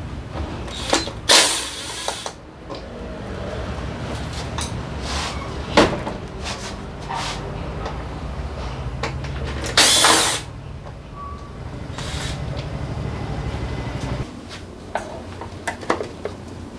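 Workshop handling noises while fitting heated grips to a motorcycle's handlebars: scattered clicks and knocks and two short hissing, scraping bursts, the louder one about ten seconds in. Under them runs a steady low hum that stops about fourteen seconds in.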